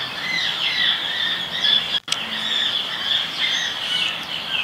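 A chorus of many small birds chirping and twittering together without a break, with the sound dropping out for an instant about two seconds in.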